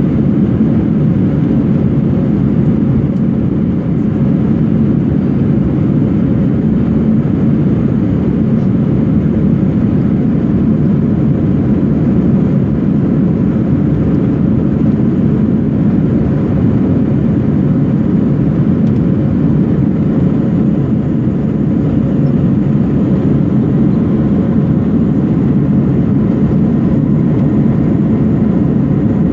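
Steady engine and airflow drone inside the cabin of an Airbus A321-200 in flight, heard from a window seat. It is a dense, even low rumble with a faint steady hum over it.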